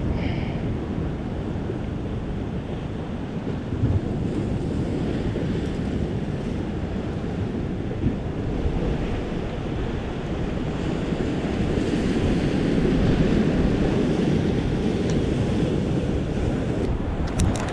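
Ocean surf washing against a rocky shore, with wind buffeting the microphone; the surf grows a little louder for a few seconds past the middle.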